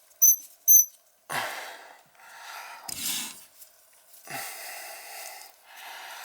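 Water from a newly installed outdoor shower spraying in hissing spurts as the valve is opened and shut, the longest spurt near the end, while the unit is run to check for leaks. Three short high chirps sound in the first second.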